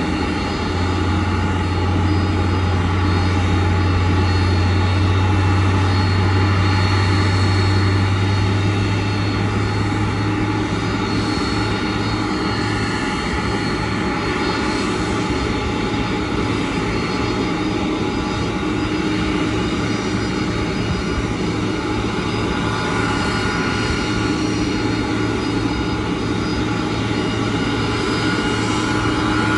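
Boeing 747-400 Dreamlifter's turbine engines running at low power as it is moved by a tug: a steady jet rumble with several high, constant whines. A deep low hum is stronger for the first several seconds, then eases.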